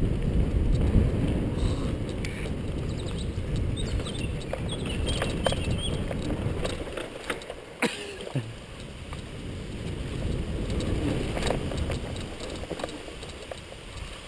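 Wind rushing over a helmet-mounted camera's microphone and tyre rumble as a bicycle rides fast over a dirt track and grass, with scattered clicks and rattles from the bike. The rushing eases about seven seconds in.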